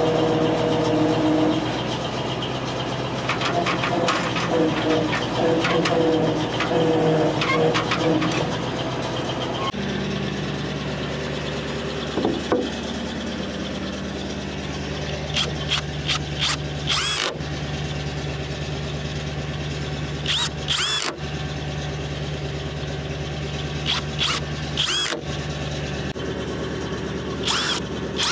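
A crane truck's engine running steadily as the truck is moved, its note shifting about ten seconds in. Several short, high-pitched squeaks with sharp clicks sound over it in the second half.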